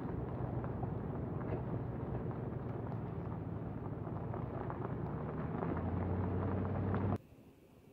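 Vehicle driving along a gravel road: a steady low engine and tyre rumble with scattered small crackles of gravel, cutting off suddenly about seven seconds in.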